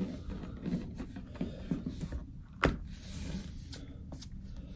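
Handling noise of a phone being pressed into a flexible plastic case: soft rubbing and small clicks, with one sharp click about two and a half seconds in as the case snaps on.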